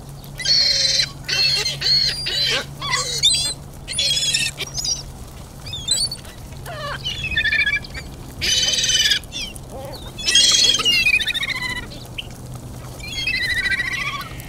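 Gulls calling: about ten short, high, wavering squawks in irregular bursts, over a steady low hum.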